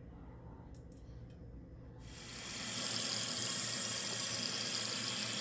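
Water running steadily from a tap, switched on about two seconds in after a quiet stretch.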